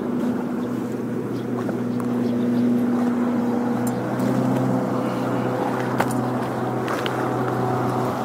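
Motorboat engine running steadily on the river, its pitch shifting slightly about four seconds in.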